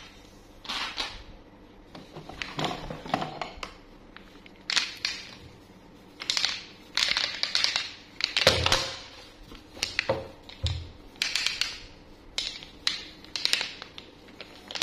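Handling noise from gloved hands taking a jointed, segmented toy fish out of a cardboard box of toys and flexing it: irregular rustles, scrapes and light clacks, with two dull knocks a little past halfway.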